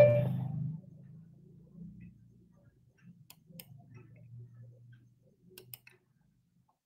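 A spoken word ending at the very start, then a few faint clicks over a faint low hum, the last two close together near the end; the clicks fit a computer mouse advancing slides.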